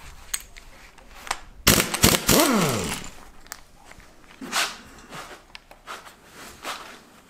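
Air impact wrench firing a short burst on the timing chain sprocket bolt of a Ford 5.0 engine, its motor winding down in a falling whine after the trigger is released. Scattered light clicks and clinks of metal parts being handled follow.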